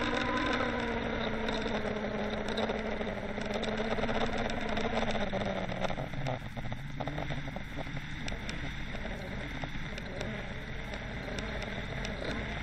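A boat engine heard underwater, a steady drone whose pitch sinks slightly over the first few seconds, over water rushing past. From about six seconds in, a patter of short clicks joins it.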